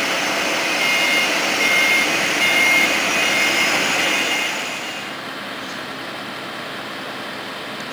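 Boeing 767's jet engines running with a steady roar and a high turbine whine; about four and a half seconds in the sound drops and the whine fades, leaving a lower steady hum.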